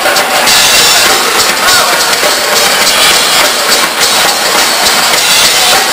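Live band playing loud: drum kit and electric guitars. It comes through as a dense, unbroken wall of sound with no clear break.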